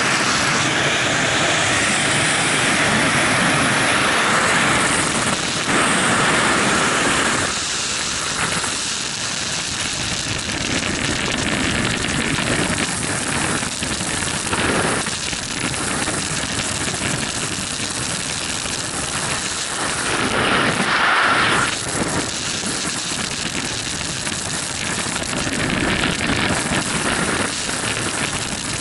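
Freefall wind rushing over the camera microphone of a skydiver, a loud steady rush that swells and eases as the body's position changes.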